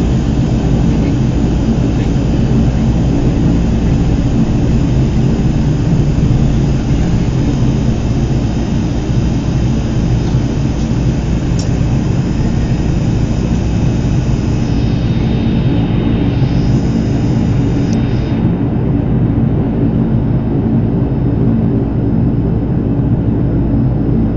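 Turboprop airliner's engines and propellers droning steadily, heard from inside the passenger cabin as the plane taxis after landing. The higher whine eases off about two-thirds of the way through while the low drone carries on.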